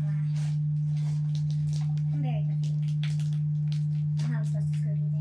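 A loud, steady low hum on one unchanging tone, with scattered light clicks and knocks of furniture parts and screws being handled, and faint voices underneath.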